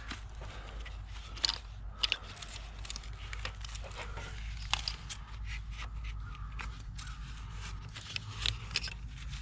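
Scattered light clicks and scrapes of hands working a plastic electrical connector and wiring harness in a tight engine bay, over a steady low hum.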